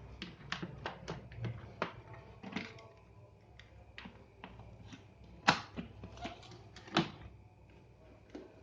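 Irregular light clicks and knocks, as of hard objects being handled, with two louder knocks about five and a half and seven seconds in.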